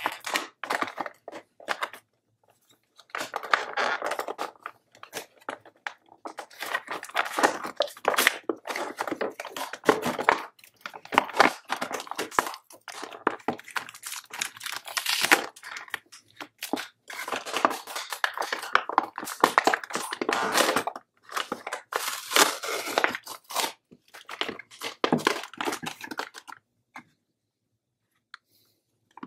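Toy packaging being torn open and crinkled by hand, in irregular bursts of tearing and crackling that stop a few seconds before the end.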